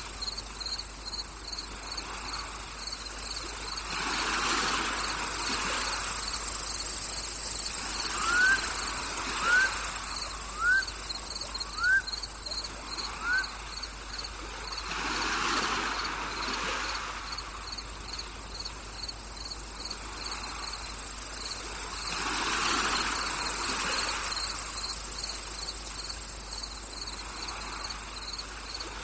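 Insect chorus, with crickets giving a steady high-pitched buzz and a second insect chirping in quick even pulses, over a rushing noise that slowly swells and fades. About a third of the way in, five short rising calls sound a little over a second apart.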